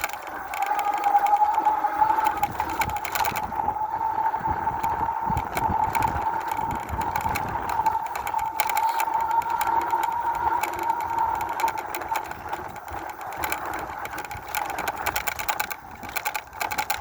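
Electric bike motor whining at a steady high pitch while riding, with frequent clicks and rattles from the bike jolting over rough ground.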